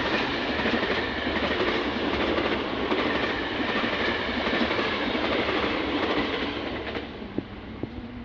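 Train passing close by, a steady rumble of wheels on the rails that fades away near the end, followed by a few faint clicks.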